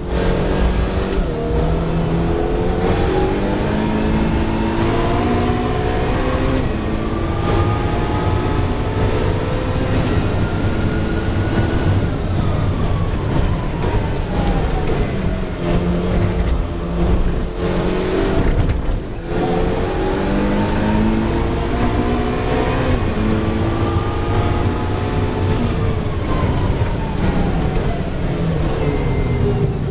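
Ferrari 488 Challenge race car's twin-turbo V8, heard onboard at full throttle. The engine note climbs steadily in pitch for about ten seconds, then falls away as the car slows. After that it climbs again and falls once more near the end.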